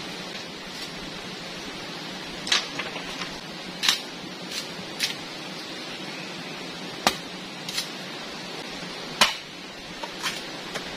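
Machete chopping bamboo: about a dozen sharp strikes at irregular spacing, the loudest about seven and nine seconds in, over the steady rush of a shallow rocky stream.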